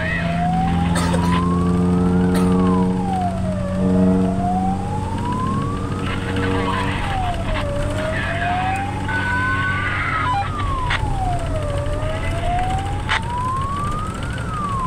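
Fire brigade vehicle's siren wailing, sweeping slowly up and down in pitch about every four seconds, heard from inside the cab. A long, steady, low tone sounds under it from about one to five seconds in and again briefly about six seconds in.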